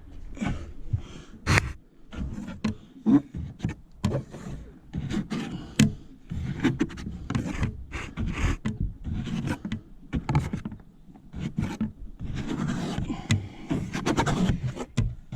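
Window-tint squeegee rubbing and scraping over wet tint film on glass in short, irregular strokes, with occasional sharp clicks and knocks. The strokes push the mounting water out from under the film.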